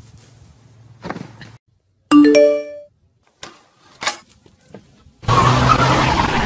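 A single bell-like chime about two seconds in, fading within a second, followed by a few faint clicks. Loud music starts about five seconds in.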